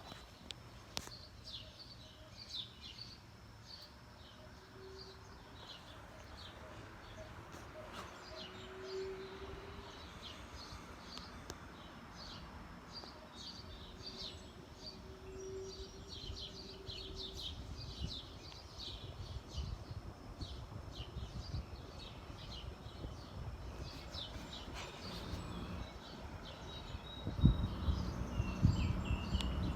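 Small birds chirping again and again over the steady low running noise of a vintage Dominion 20-inch box fan on its low speed. A louder low rumbling comes in near the end.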